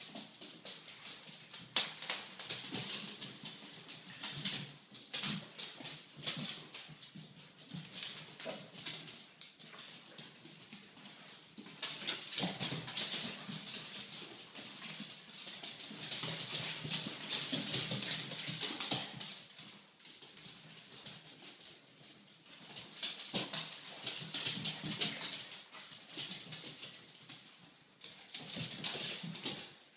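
Several Yorkshire terriers scampering on a laminate floor, their claws clicking and scrabbling in quick, irregular runs, with occasional dog whines.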